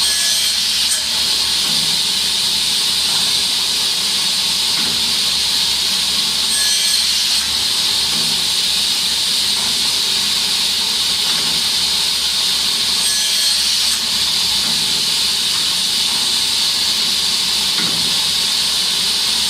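CNC cross-cut saw line for cutting boards to length, running with a steady hiss and brief faint squeaks about seven and thirteen seconds in.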